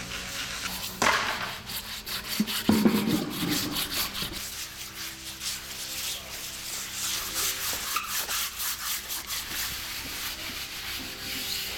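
Hand scrub pads rubbing back and forth over a wet tile floor, several people scrubbing in quick repeated strokes, with a few louder knocks and scrapes in the first few seconds.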